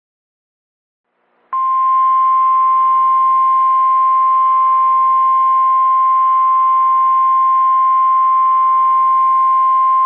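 NOAA Weather Radio 1050 Hz warning alarm tone, one loud steady high tone starting about a second and a half in, over a light hiss of radio static. It announces a tornado warning broadcast.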